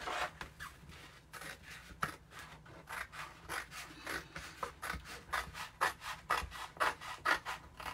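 Scissors snipping through a stencil transfer sheet, a quick run of short cuts at about three a second.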